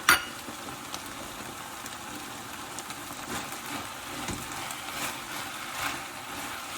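Mince, vegetables and herbs sizzling steadily in a hot wok, with a sharp knock right at the start and a few faint spatula scrapes.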